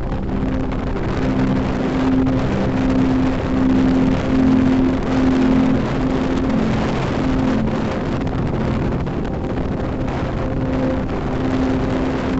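Road and wind noise from a moving vehicle, swelling and easing. A melody of held notes, likely background music, runs underneath.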